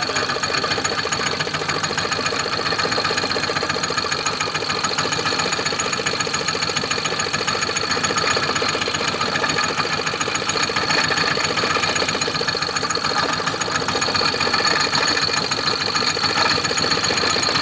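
Small fishing boat's engine idling steadily, with a fast, even knocking beat.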